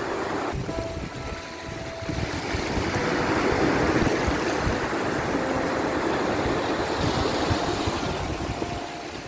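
Sea waves washing in, a steady rushing surf that swells and eases, with wind noise.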